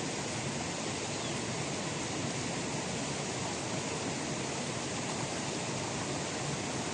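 A steady, even rushing noise with no distinct sounds in it.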